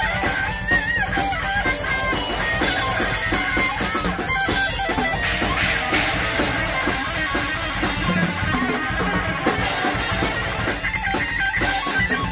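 Heavy metal instrumental played live by a band: distorted electric guitar through a Soldano amplifier, electric bass and a drum kit with cymbals, with sustained lead-guitar notes over a dense, driving beat.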